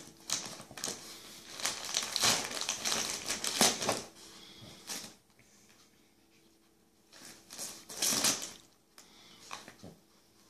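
Shiny gift-wrapping paper crinkling and tearing as a Lhasa Apso chews and noses into a wrapped present. The paper rustles in two spells: a long one at first, then a shorter one a couple of seconds after it stops.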